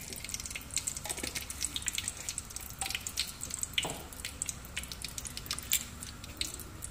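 Cumin seeds and a dried red chilli sizzling in hot oil in an aluminium pot, with many quick, irregular pops and crackles: the spices tempering in the oil.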